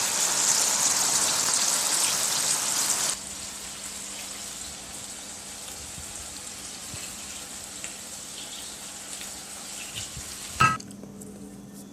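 Bacon frying in a hot pot, sizzling loudly, then suddenly quieter about three seconds in and sizzling softly on. A single knock near the end.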